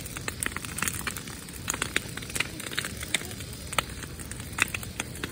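Brush pile fire burning, its branches crackling and popping at irregular intervals, several sharp snaps a second at times, over a steady low rush.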